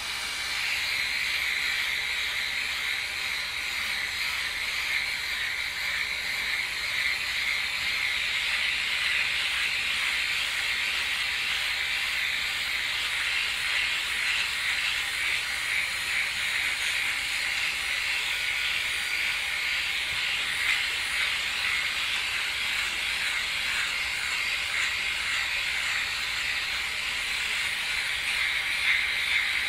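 Flawless Legs battery-powered electric shaver running steadily as it is moved over the skin of a leg, cutting the hair; a constant high whir with no break.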